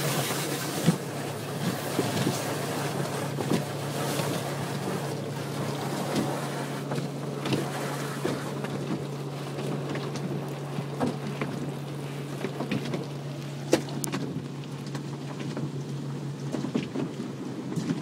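Automatic car wash heard from inside the car: water spray and wash brushes rushing and slapping over the glass and body, over a steady low hum that stops near the end. A few short knocks stand out along the way.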